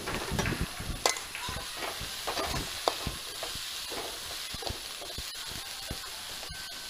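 Chopped onions sizzling in hot coconut oil in a wide metal kadai, stirred with a steel spatula that scrapes and clinks against the pan at irregular moments, loudest about a second in.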